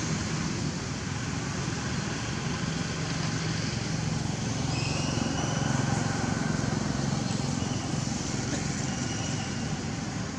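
Steady outdoor background noise, a low rumble with a hiss over it, with a few faint high chirps about halfway through and again near the end.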